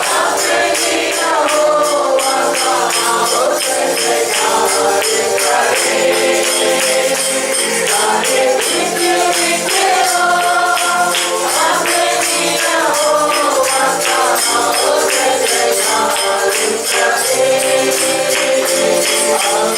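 Worship music played loud and steady, with a tambourine shaken in rhythm over the melody.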